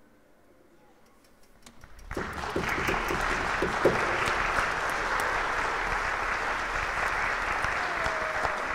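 Concert-hall audience applauding at the end of the performance. After a hush, a few scattered claps come in, and about two seconds in they swell into full, steady applause.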